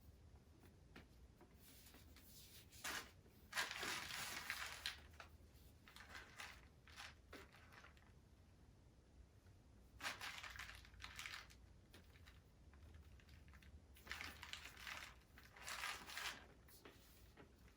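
Faint rustling and crinkling from things being handled, in several short bursts with quiet stretches between.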